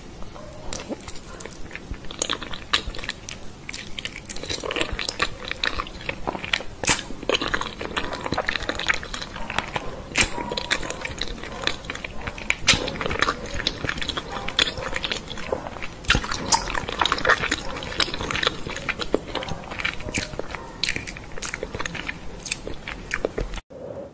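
Close-miked ASMR eating of creamy Alfredo pasta: wet chewing and mouth smacks, with many sharp irregular clicks as the noodles are taken off a fork. The sound cuts off abruptly near the end.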